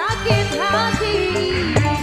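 Live band music for dancing: a melody line sliding up between notes over a steady drum beat.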